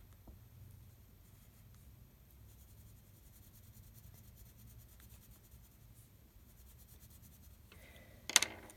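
Faint scratching of drawing and colouring on paper, then a couple of sharp clicks near the end.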